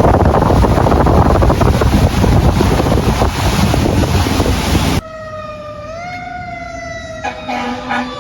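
Loud, steady roar of a heavy thunderstorm: torrential rain and wind on the microphone. About five seconds in, it cuts off abruptly to an emergency vehicle siren wailing, which rises briefly and then slowly falls in pitch.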